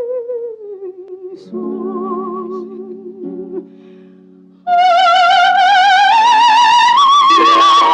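Coloratura soprano singing with wide vibrato over instrumental accompaniment. A held note ends about half a second in and a few accompaniment chords sound, then after a brief quiet gap the voice comes back loud on a long high note that climbs higher near the end.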